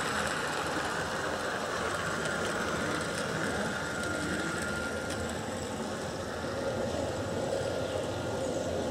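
Gauge 1 model locomotive running along garden railway track: a steady mechanical running noise with a thin whine that fades out about five seconds in.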